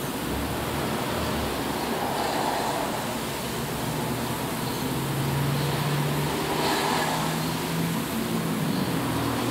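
Steady background noise, an even hiss, with a low hum that grows louder about halfway through.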